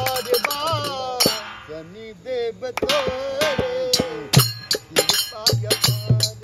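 A man singing in a wavering, ornamented line with a held note in the middle, over a regular beat of sharp percussion strikes with a low drum thump. The beat thins out midway and comes back strongly about four and a half seconds in.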